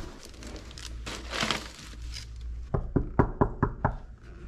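Knuckles knocking on an apartment door: a quick run of about six sharp raps, roughly five a second, near the end.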